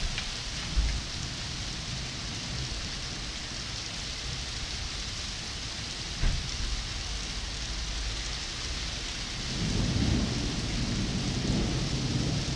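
Heavy downpour pouring steadily onto pavement and parked cars, a dense, even hiss. Two short thumps break through, about a second in and about halfway. A low thunder rumble swells in near the end.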